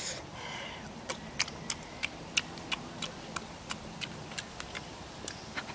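Wet mouth smacks and clicks of someone chewing fish, a few sharp irregular clicks a second.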